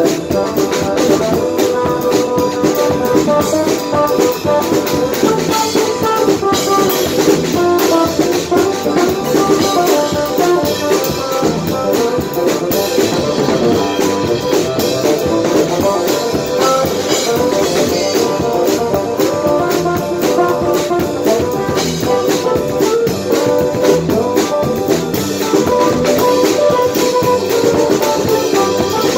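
Live band playing an instrumental passage with no singing: a drum kit keeps a busy beat with cymbals under electric guitar and a sustained melodic lead.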